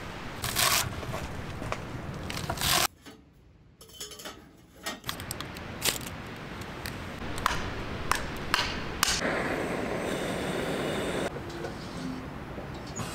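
A run of short, sharp scrapes, among them a ferrocerium rod struck with a steel striker to throw sparks onto wood shavings, followed by about two seconds of steady hiss that cuts off suddenly.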